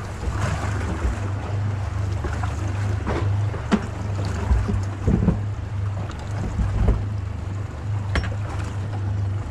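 A Honda outboard motor running steadily, with wind on the microphone and a few sharp knocks and low thumps on the boat.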